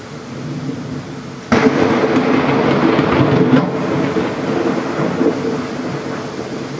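Thunder rumbling under heavy rain, then a sudden loud crack of close thunder about a second and a half in that rolls on for a few seconds and slowly fades.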